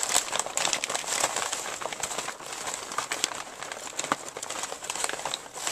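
Crumpled newspaper packing rustling and crinkling as it is handled in a cardboard shipping box, with many small crackles.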